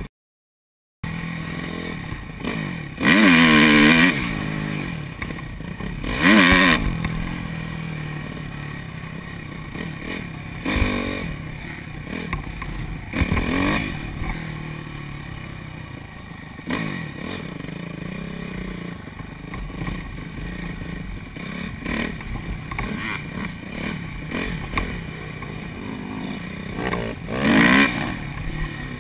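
2005 Honda CRF250 dirt bike's single-cylinder four-stroke engine revving up and down as it is ridden on a dirt track. The sound cuts in after about a second of silence, with loud rev swells about three seconds in, again around six seconds, and near the end.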